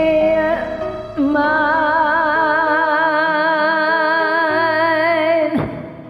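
A singer holding one long note with wide vibrato over a karaoke backing track, closing the song's last line; the voice stops a little before the end, leaving the quieter accompaniment.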